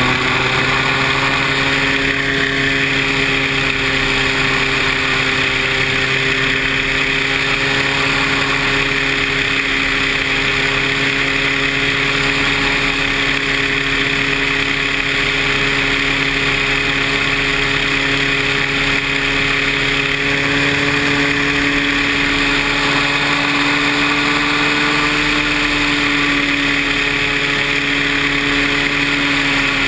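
Paramotor engine and propeller running steadily at high power, a continuous drone whose pitch rises a little about twenty seconds in and eases back near the end.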